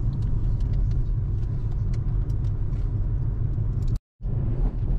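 Steady road and engine rumble inside a moving car. It cuts out completely for a moment about four seconds in.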